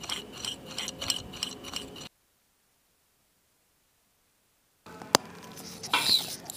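Metal tweezers clinking and tapping against small watch movement parts in a dish of cleaning fluid: a quick run of light, ringing clinks. Then about three seconds of dead silence, followed by faint ticks and a short chirping tone near the end.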